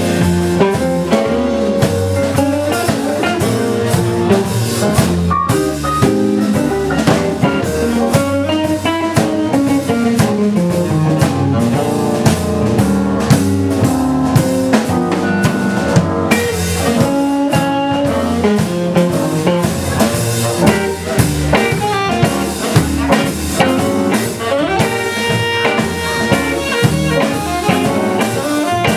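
A band playing live, with drum kit and guitar and pitched lines that glide up and down.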